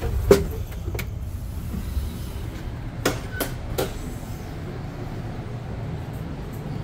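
Steady low rumble inside a Bombardier BiLevel commuter coach, with a sharp knock just after the start, another about a second in, and a few more clicks and knocks around three to four seconds in.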